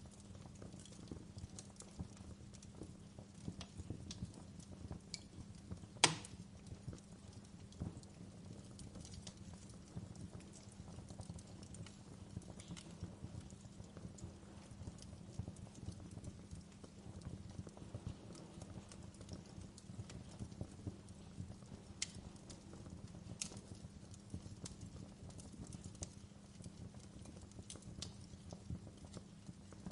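Wood fire crackling with a steady spray of small ticks and snaps over a low rumble. A single loud, sharp pop comes about six seconds in, and two more pops come close together near the end.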